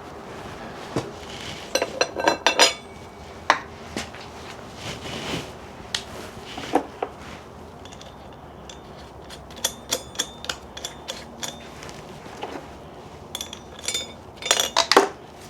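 Metal tools and parts being handled: scattered clinks and clatters of ringing metal, bunched about two seconds in, again around ten seconds, and in a quick flurry near the end.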